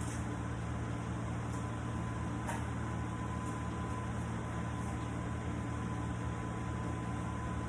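Electric orbital sander running steadily on an epoxy and cedar tabletop, a constant motor hum with a thin high whine.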